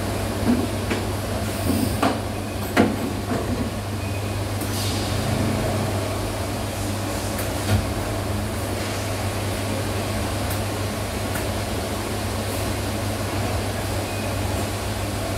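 Automated assembly cell of Epson SCARA robot arms and pneumatic tooling running: a steady low machine hum with sharp clicks and clacks now and then, the loudest nearly three seconds in, and a brief hiss about five seconds in.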